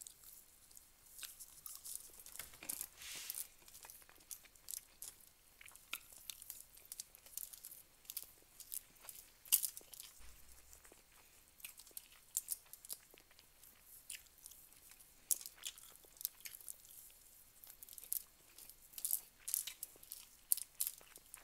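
Close-up eating sounds from a person eating rice and food by hand: chewing and mouth smacks as many irregular sharp clicks and crackles, with fingers now and then rustling the aluminium foil.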